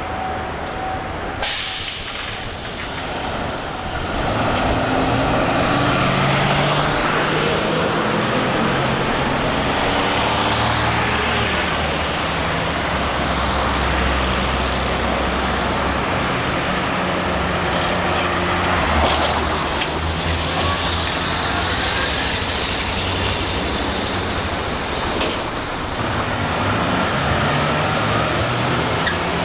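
Street traffic: city buses and cars with their engines running, the engine pitch rising several times as vehicles pull away, over steady road noise. The sound changes abruptly about a second and a half in and again near the end.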